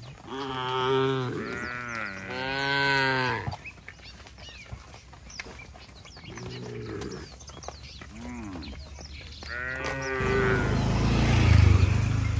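Village cattle mooing as the herd walks: two long calls at the start, then shorter moos and one more about ten seconds in. Near the end a loud low rumbling noise swells up.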